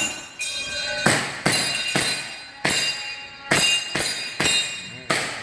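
A rapid, irregular string of about nine sharp hits, each followed by a short metallic ring that fades quickly: airsoft pistol pellets striking steel targets.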